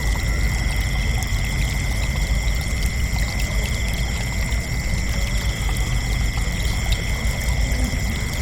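Crickets trilling steadily in a continuous chorus, over a loud, steady low rushing noise.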